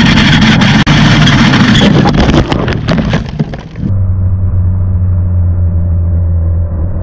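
Wind roar and a rapid run of scraping knocks and cracks from a BMW S1000RR sliding and tumbling down the road after a crash. This dies away about three and a half seconds in, and is replaced abruptly by a steady low droning tone.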